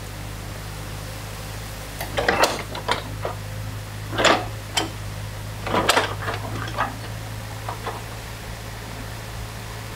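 New Holland mini excavator engine running steadily while its bucket tears into a beaver dam, with a string of sharp clanks and cracks of metal on packed sticks and branches from about two to eight seconds in.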